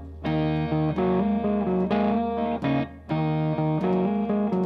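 Instrumental stoner rock played live: a distorted, effects-laden electric guitar riff of repeated short phrases, broken by brief gaps, over a steady low bass note.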